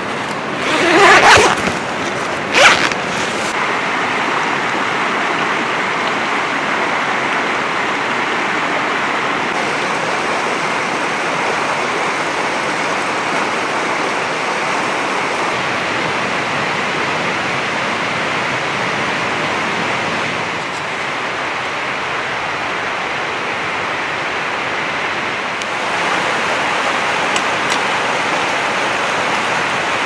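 A canvas tent's door zipper is pulled open in two quick strokes, about a second in and again at about two and a half seconds. A steady rushing noise runs underneath and carries on afterwards.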